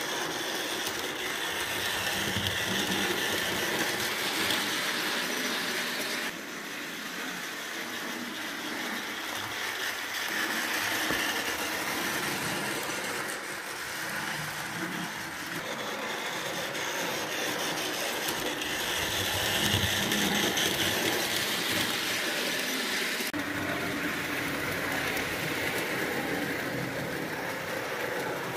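HO-scale electric model trains running on their track: a steady whirring rattle of small motors and wheels on rail. The sound changes abruptly three times.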